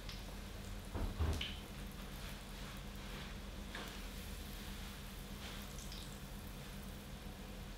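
Luqaimat dough balls frying in hot oil in a pan, a faint steady sizzle, with a couple of knocks about a second in.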